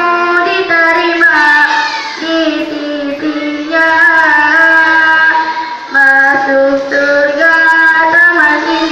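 A child's voice singing solo in long held notes, with wavering ornamental turns between them.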